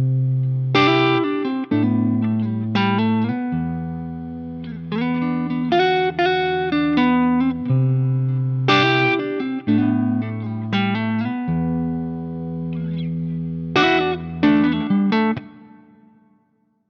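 A musical instrument being played: a melodic phrase of notes and chords over long held bass notes, which stops shortly before the end.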